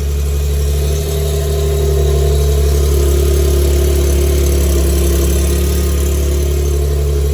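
Infiniti G37S's 3.7-litre V6 idling steadily just after starting, through aftermarket test pipes freshly refitted with new OEM exhaust gaskets.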